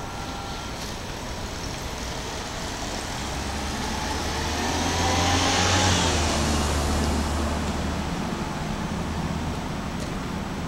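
A road vehicle passing by: tyre noise and a low engine hum grow louder to a peak about six seconds in, then fade away over steady traffic noise.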